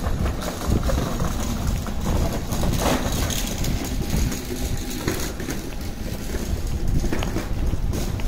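Wind buffeting the microphone: a gusting low rumble over a steady hiss.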